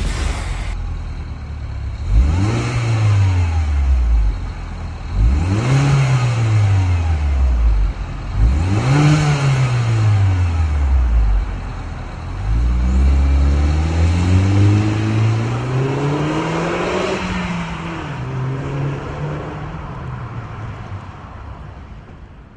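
2011 Mini Cooper S's turbocharged 1.6-litre four-cylinder engine revved through a Magnaflow aftermarket exhaust: three quick blips about three seconds apart, then a longer rev that climbs for several seconds and falls back, the sound dying away near the end.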